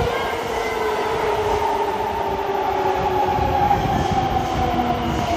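Madrid Metro train pulling into the station platform: wheels rumbling on the rails under a whine from the traction motors that slowly falls in pitch as the train slows.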